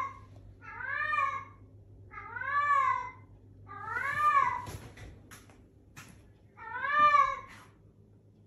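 A cat meowing four times, each meow drawn out and rising then falling in pitch, the last one the loudest.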